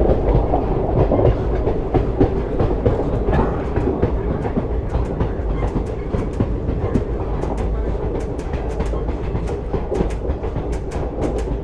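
Passenger train running along the track, heard on board: a steady rumble with the wheels clicking over rail joints, the clicks coming in a quick run from about halfway through.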